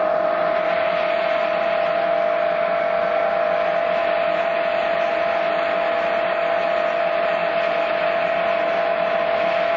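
Pelton-wheel micro-hydro turbine and generator running steadily under full water pressure: a constant hum with one strong steady tone over a rushing hiss.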